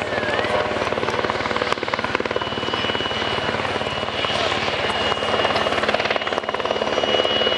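Helicopter flying low and close: the rapid, even chop of its main rotor blades, with a steady high turbine whine coming in about two seconds in.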